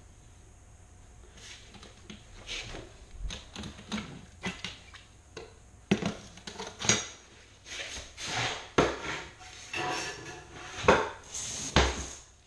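Stainless steel linear shower drain grate being lifted out and laid on tile: irregular metallic clinks, clatters and scrapes that start about a second and a half in.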